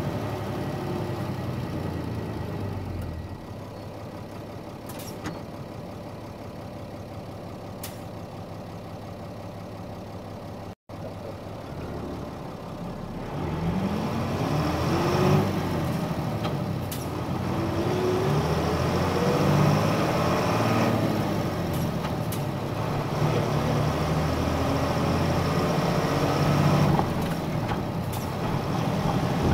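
Nissan Diesel Space Runner RM (KC-RM211GAN) city bus's diesel engine heard from inside the bus: it runs low and steady for several seconds, then the bus accelerates, the engine note rising in repeated sweeps as it works up through the gears.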